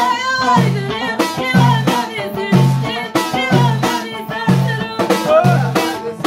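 Amazigh (Tashelhit) folk music: a woman sings over a plucked loutar lute and hand-played frame drums. A deep drum stroke lands about once a second.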